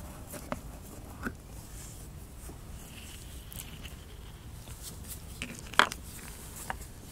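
A few faint clicks and taps as the plastic cap of a brake fluid reservoir is unscrewed and taken off, with the sharpest click near the end.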